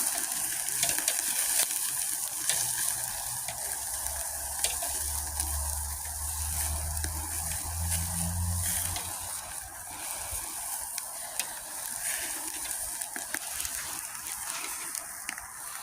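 Sausages and ribs sizzling on a barbecue grill: a steady hiss with scattered sharp pops. A low hum comes in about four seconds in and fades out about nine seconds in.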